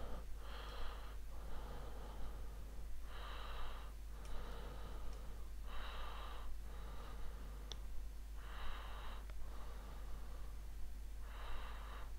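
A person's slow, regular breathing close to the microphone, with a louder breath about every three seconds and softer ones in between.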